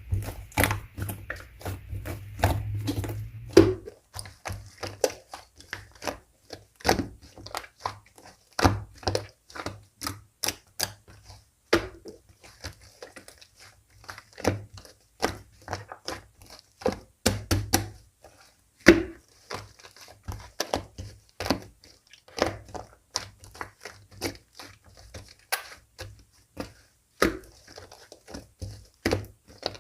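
Hands kneading and pressing a mix of slimes, giving irregular sharp sticky clicks and pops, a few much louder than the rest.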